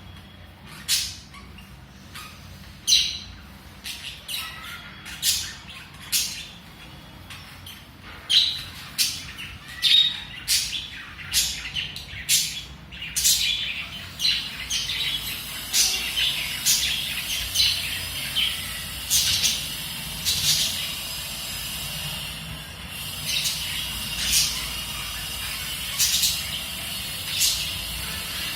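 Pet budgerigars chirping in short, sharp calls, about one or two a second, with a steadier chattering warble joining in from about halfway.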